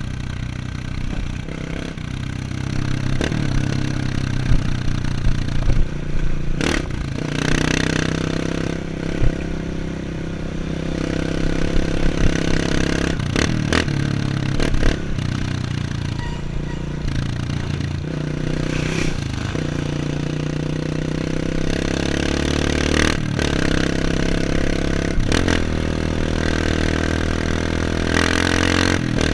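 Off-road motorcycle engine running, its pitch rising and falling as the throttle opens and closes, with sharp knocks and rattles every few seconds.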